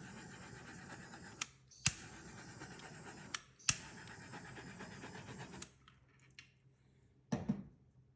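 Handheld torch hissing in three bursts over wet acrylic pour paint, each burst started with a sharp ignition click. A short knock follows near the end.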